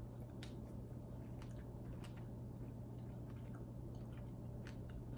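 A person chewing soft, wet fruit with the mouth close to the microphone: small irregular wet clicks and squishes, over a steady low hum.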